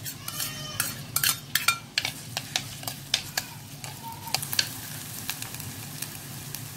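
Chopped ginger and garlic sizzling in hot coconut oil in a clay pot (mann chatti). A metal spoon stirs them, clicking and scraping against the pot many times.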